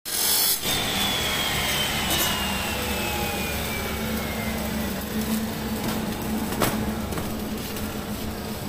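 Steady mechanical running noise with a low hum, and a high whine that falls slowly in pitch over the first few seconds.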